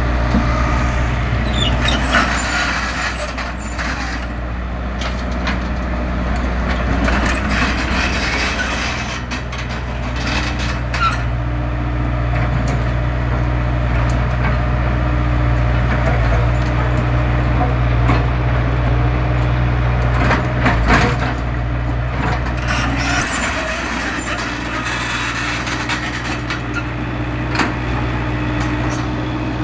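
Heavy diesel engine of an excavator running under load, its low drone shifting pitch a couple of times as it works. Scattered knocks and rattles come in over it, louder around the middle and near the end.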